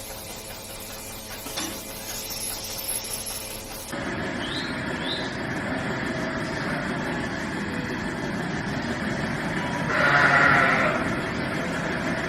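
A young farm animal bleats once, loud and drawn out, about ten seconds in, over a steady background hiss.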